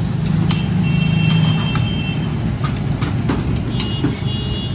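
Gas burner roaring steadily under a pot of chai, with the ladle clicking and scraping against the metal pot, making a brief high ringing about a second in and again near the end.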